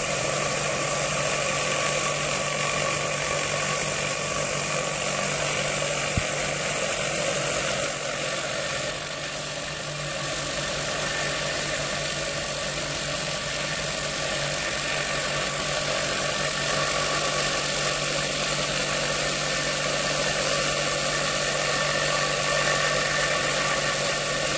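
Thumler Industrial Mini-Bowl vibratory tumbler running: a steady motor hum under the continuous hiss of about 2 kg of stainless steel shot churning with rusty bolts and abrasive compound in the bowl.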